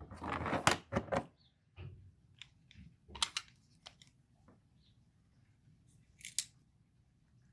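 Plastic covers of a Volvo key fob being slid and snapped back on: a short scraping rustle, then a scatter of small sharp clicks, with a double click about six seconds in.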